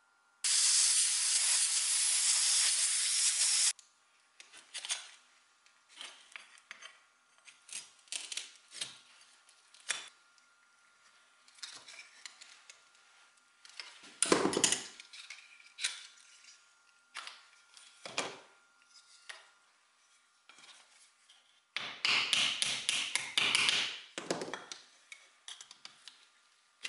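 A loud steady hiss for about three seconds, then a run of separate scrapes, knocks and clicks of hand tools working split wooden chair parts, with a dense quick series of scrapes about two-thirds through. Near the end, nails are worked out of the wood with end-cutting pincers.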